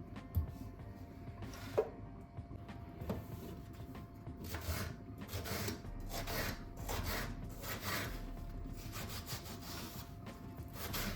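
Repeated rasping, scraping strokes of food being worked by hand in a kitchen: a few light clicks, then from about four seconds in a steady run of strokes at about two a second.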